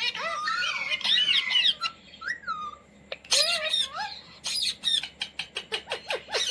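Indian ringneck parrot squawking and chattering in high, bending calls, breaking into a fast run of short, sharp squawks about halfway through.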